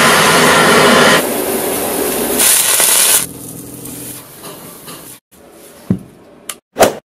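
Gas torch flames hissing steadily as they heat a kitchen knife red-hot. A sharper hiss and sizzle follows as the hot blade cuts into a foam sponge, then quieter crackling and three short sharp knocks near the end.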